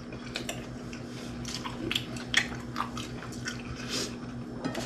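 A person chewing toast: soft, irregular crunching and small mouth clicks.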